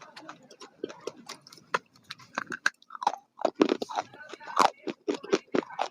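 A person chewing and biting food close to the microphone, a run of irregular sharp clicky mouth noises that grows denser and louder a little past two seconds in.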